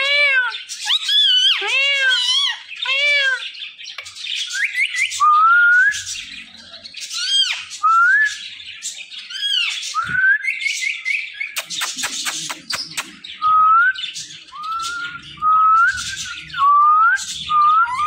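Indian ringneck parakeet calling: about four seconds of repeated arching squawk-like notes, then a string of short rising whistles, with a brief raspy burst about midway.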